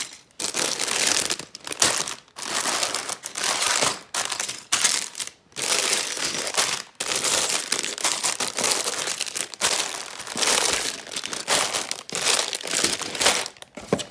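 Packaging inside an opened Lego set box crinkling and rustling as it is handled, in repeated stretches with short pauses.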